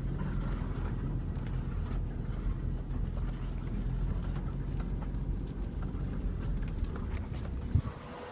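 2000 Dodge Neon's four-cylinder engine running steadily at low speed on a rough dirt trail, with scattered light knocks from the car working over the bumps.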